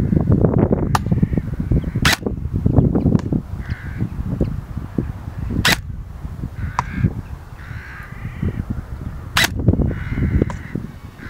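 Three single shots from a VFC Scar H electric airsoft rifle, each a sharp crack, about three and a half seconds apart. A bird calls several times between them, over a fluctuating low rumble.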